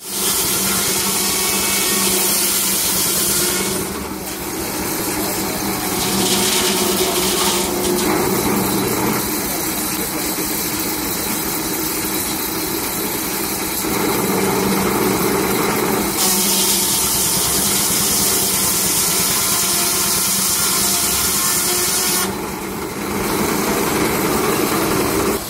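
Large belt-driven circular sawmill blade spinning and sawing a log. There is a loud high hiss while the blade is in the wood: for about the first four seconds, again briefly around 6–7 seconds, and from about 16 to 22 seconds. Between cuts the blade runs free with a steady hum.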